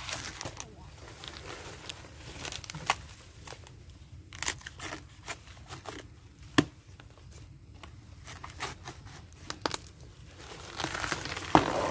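A green banana pseudostem being cut and torn through by hand, with scattered sharp cracks and snaps of the fibrous, watery stem. Near the end a longer stretch of tearing as the stem gives way.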